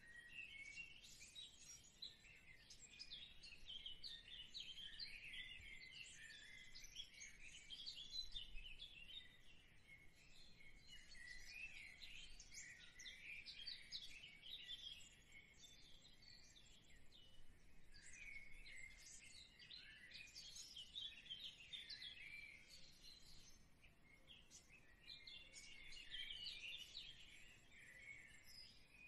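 Faint chirping of many birds, a continuous tangle of short high calls that swells and ebbs.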